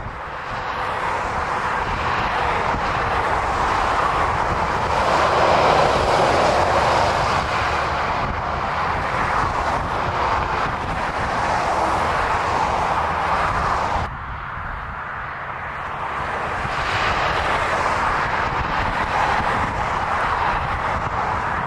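Road traffic passing at speed: a steady rush of tyre and engine noise from cars and lorries that swells as each vehicle goes by. It drops suddenly about two-thirds of the way through, then builds again as more traffic approaches.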